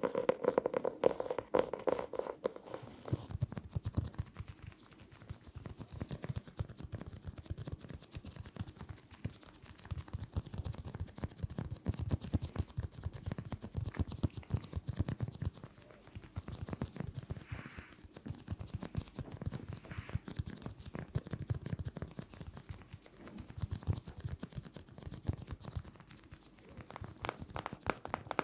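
Rapid, dense scratching on an object, made as an ASMR trigger, starting about three seconds in. A briefer, different crackling sound comes before it.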